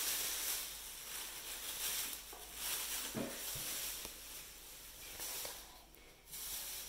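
Faint rustling of a plastic bag being handled, with a couple of soft knocks about three seconds in.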